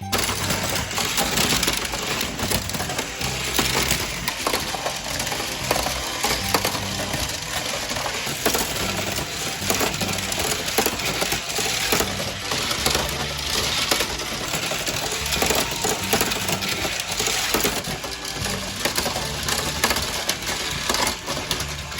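Battery-powered plastic toy track sets running: a dense, continuous rattle and clatter of small plastic parts and wheels on plastic track, with faint recurring low knocks.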